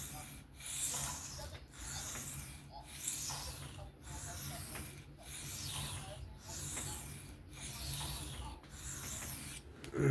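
Knife blade being stroked by hand across an Atoma 400 diamond sharpening plate, a dry rasping scrape about once a second, while the bevel is being set.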